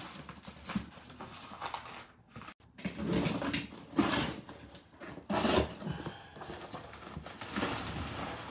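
Utility knife slicing the packing tape on a cardboard box and the flaps being pulled open, then crumpled newspaper and plastic packing rustling as hands dig in. Irregular scrapes and crinkles.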